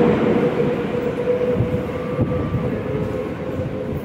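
Metro train rumbling through the station, with a steady whine held over the rumble.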